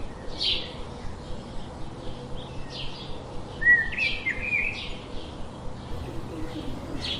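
Birds calling: short, sharp chirps every second or so, with a louder call of several gliding notes about four seconds in.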